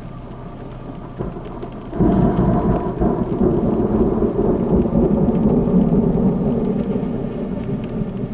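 Thunder from a severe thunderstorm: a long rumbling roll that comes in suddenly about two seconds in and slowly fades over the following six seconds.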